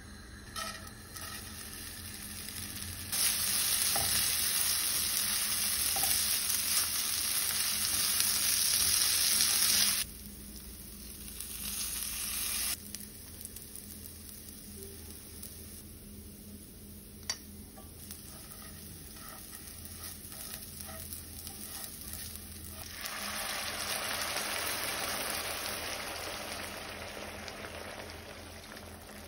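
Butter and oil sizzling in a nonstick frying pan as rice toasts in the fat and is stirred with a silicone spatula. The sizzle comes in stretches: loud for several seconds before cutting off suddenly, then quieter with one sharp click, then swelling again near the end.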